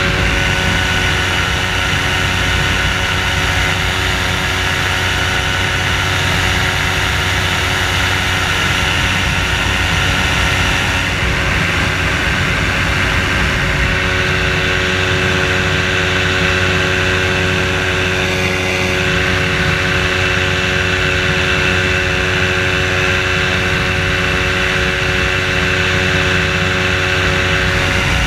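Engine and propeller of a flex-wing float trike (amphibious microlight) running steadily in level flight, a continuous droning hum with a constant hiss over it.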